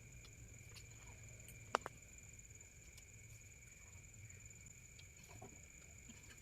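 Night insects, crickets or similar, chirring steadily in two high, thin tones, with a single sharp click a little under two seconds in.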